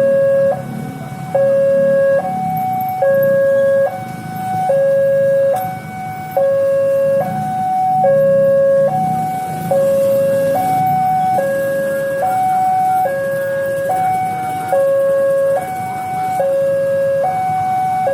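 Indonesian railway level-crossing alarm sounding its electronic two-tone warning, alternating low and high tones about every second without pause, which signals that a train is approaching and the crossing is closing. A low rumble runs underneath.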